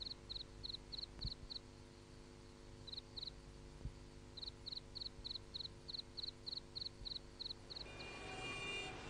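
A cricket chirping faintly in regular short chirps, about four a second. It breaks off about a second and a half in, gives a brief pair near three seconds, then resumes steadily. Near the end a faint sustained tone fades in.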